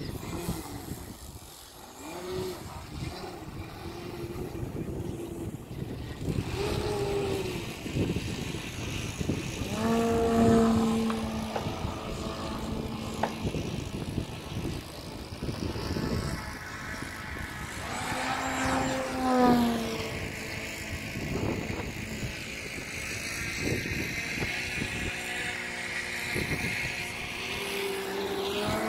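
Large electric RC aerobatic plane, an Extreme Flight Extra 300 with an XPWR brushless motor swinging a 22x10 propeller, flying overhead. The propeller's drone rises and falls in pitch with the throttle and the plane's passes, and is loudest about ten seconds in and again near twenty seconds.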